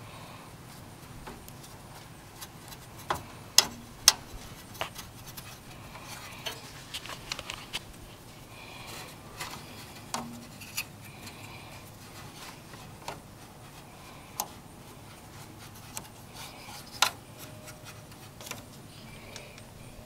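Scattered light clicks, taps and rubbing as hands handle the wiring and plastic connectors inside an open desktop computer case, with a few sharper clicks.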